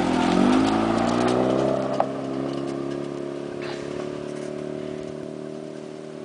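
Mazda RX-8's rotary engine revving up as the car pulls away hard on loose dirt, with gritty tyre and gravel noise at first. The engine note climbs over the first second and a half, then holds steady and fades as the car drives off, with one sharp click about two seconds in.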